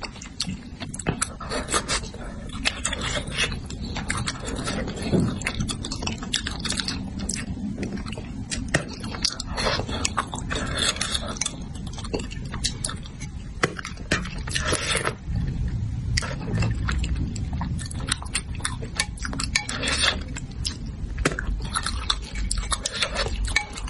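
Close-miked eating sounds: chewing, with a dense, irregular stream of short wet clicks and smacks of someone eating spicy braised crucian carp.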